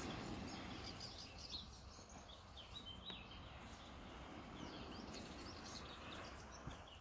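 Faint outdoor ambience: a steady low hiss with small birds chirping now and then in short high twitters.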